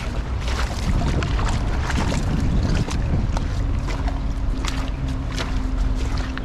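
Wind rumbling on the microphone outdoors, with scattered short clicks and a faint steady hum coming in about three and a half seconds in.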